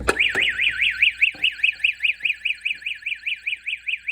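School fire alarm going off after its pull station is pulled. It starts abruptly with an electronic tone that sweeps rapidly up and down, about seven times a second.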